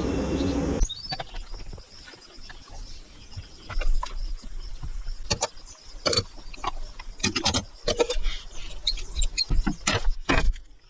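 Irregular sharp knocks and taps of hand tools working wood. A steady noise cuts off about a second in.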